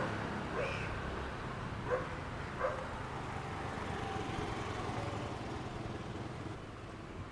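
A dog barking: three short barks in the first three seconds, over a steady low rumble.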